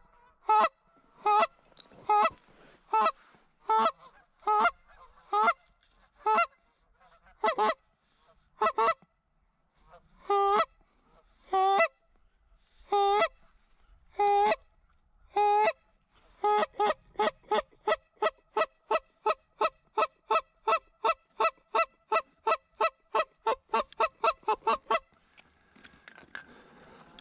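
Canada goose honks, one at a time and loud. They come about one a second at first, then about two-thirds through they turn into a fast, even run of about three a second, which stops shortly before the end.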